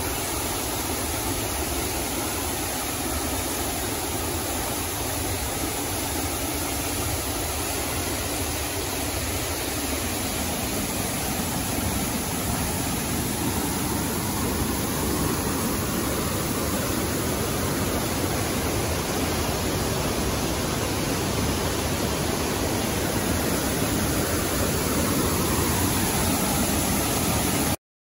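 Hiji Falls crashing into its plunge pool: a steady rushing noise of falling water. It grows a little fuller and louder partway through, then cuts off abruptly near the end.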